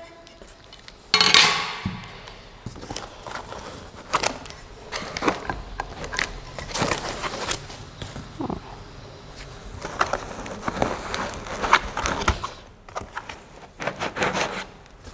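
Packaging and machine parts being handled during an unboxing: irregular rustling and scraping of cardboard and packing material, with light knocks as parts are lifted out and set down. The loudest moment is a sliding scrape about a second in.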